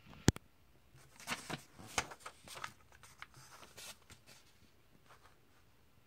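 A comic book's page being turned by hand: a sharp click at the very start, then about three seconds of paper rustling and crinkling with a few crisp snaps.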